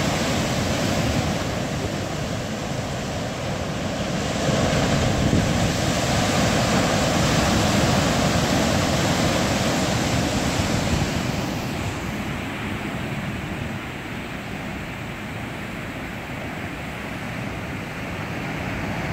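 Ocean surf breaking and washing over shoreline rocks: a steady rushing that swells a few seconds in and eases back a little past the middle.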